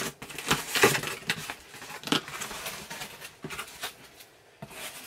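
A cardboard shipping box being handled and opened by hand: irregular crackles, rustles and scrapes of the taped cardboard flaps. The loudest sounds come a little under a second in and again about two seconds in.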